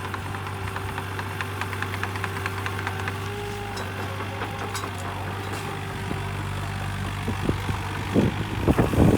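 Komatsu PC28UU-2 mini excavator's diesel engine running steadily with a constant hum. A few loud, irregular low thumps come near the end.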